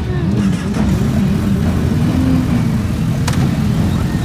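Several sport motorcycle engines running at idle among the riders, their pitch rising and falling slightly with light throttle. A single sharp click about three seconds in.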